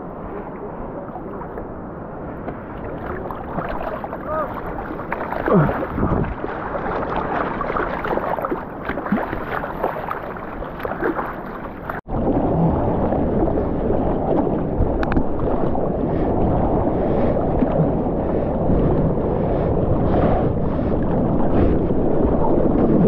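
Water lapping and sloshing close to the microphone at the water's surface, with small splashes. About halfway through there is a sudden cut to a louder, steady rush of water and wind as a surfboard moves fast through the water, throwing spray off its nose.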